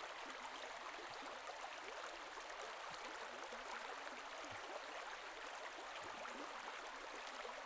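Faint, steady rush of flowing water, with no distinct splashes or other events.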